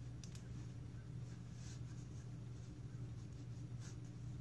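Faint rustling of a handkerchief being folded and knotted at the back of the head, a few soft rustles over a steady low hum.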